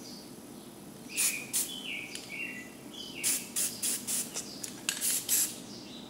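Aerosol spray paint can sprayed in a series of short hissing bursts along a straight edge, laying down mist at the base of painted waterfalls. Short, high, chirp-like tones fall between the bursts.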